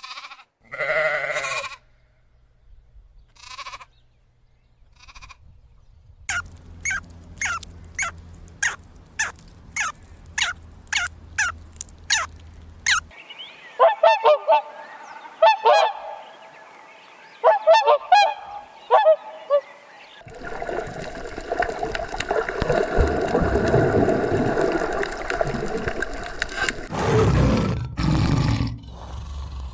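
Geese honking: a run of short calls about twice a second, then clusters of calls. From about two-thirds of the way in, a longer, rougher animal sound takes over.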